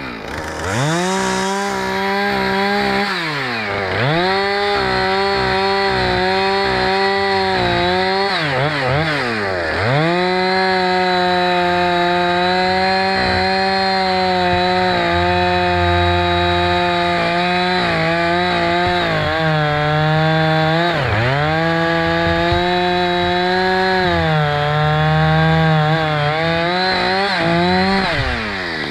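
Husqvarna 460 Rancher two-stroke chainsaw limbing and topping felled yellow cedar, held at high revs through long cuts. Its pitch sags under load in a couple of cuts, and the throttle is let off and snapped back up about four times.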